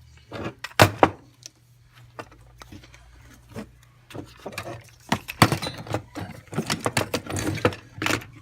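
Metal parts clinking, knocking and rattling by hand as a Walbro 450 fuel pump is worked into a fuel-tank sending unit: a few sharp clicks about a second in, then a dense run of clatter from about five to eight seconds. A steady low hum runs underneath.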